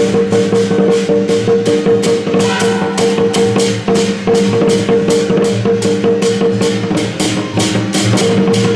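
Loud electronic dance music with a fast, steady beat and long held low notes.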